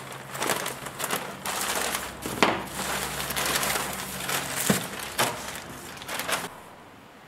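Plastic courier satchel and bubble wrap handled and pulled apart by hand: a continuous run of crinkly plastic noise with a few sharper cracks, stopping about six and a half seconds in.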